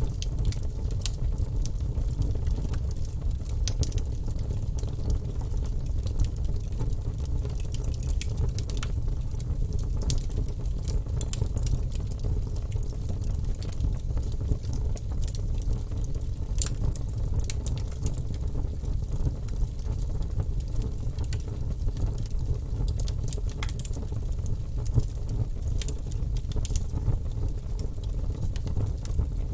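Fire burning in a fireplace: a steady low rumble with irregular crackles and pops scattered throughout.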